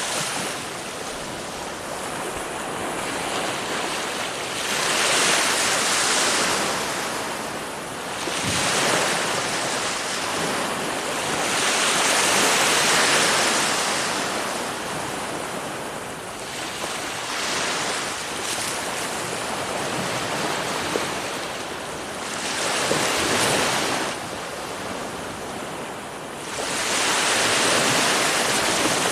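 Ocean surf: waves breaking and washing up the shore in a continuous hiss that swells into a louder rush every few seconds.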